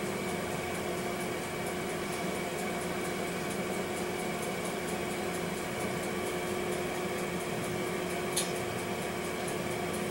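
Steady mechanical hum of a room appliance with a constant low tone, faint regular ticking over it, and a single soft click about eight seconds in.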